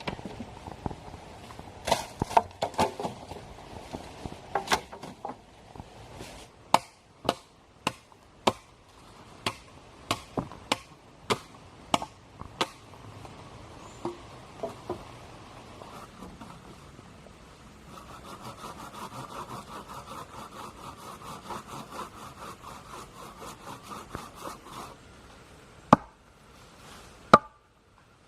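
Wood being cut: a blade strikes wood again and again, irregularly, then there are several seconds of rapid, even sawing strokes, and two more sharp chops near the end.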